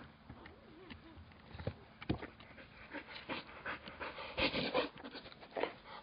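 A brindle dog panting close to the microphone, with a run of quick breaths that is loudest about three-quarters of the way through.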